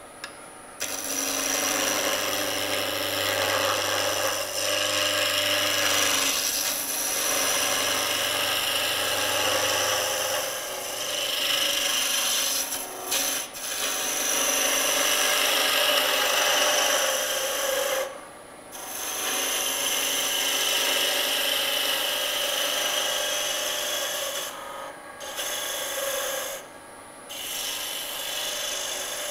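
Turning tool cutting into the wooden grip piece of a pen spinning on a lathe at about 1500 rpm, a steady scraping hiss of wood being shaved. The tool lifts off the wood briefly a few times in the second half.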